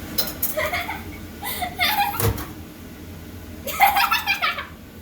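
Laughter in three bursts, with a single sharp knock a little over two seconds in.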